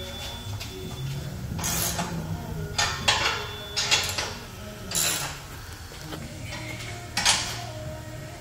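A hand wrench tightening the exhaust clamp bolts on a stainless H-pipe: about five short bursts of metallic clicking and clinking, the sharpest one about seven seconds in.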